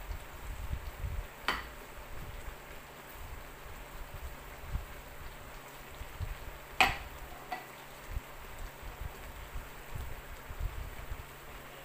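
Low, uneven rumble of a pot of vegetables in coconut milk simmering on a gas burner. Two sharp clicks break in, the louder about seven seconds in.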